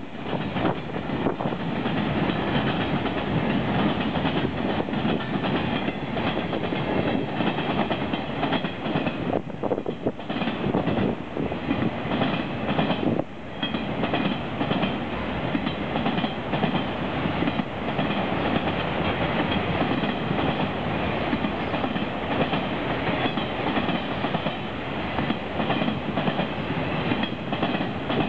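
Freight cars of a passing train rolling by steadily, steel wheels clattering rhythmically over the rail joints with a continuous rumble.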